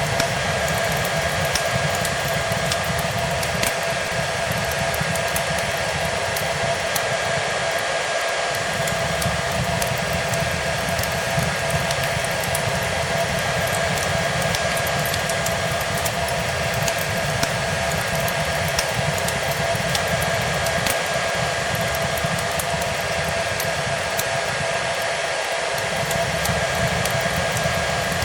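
Hair dryer running steadily, a continuous rushing noise with a constant motor whine, mixed with a fireplace's scattered crackles and small pops.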